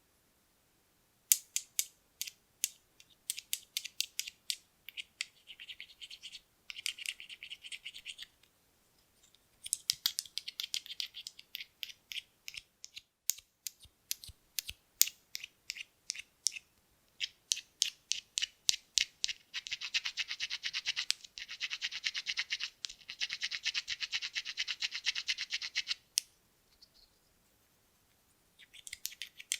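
Buttons handled to make sound: runs of sharp, light clicks that start about a second in, broken by short pauses. In the latter half they turn into a long stretch of dense, fast clicking, like buttons rattled or scratched together, which stops shortly before the end.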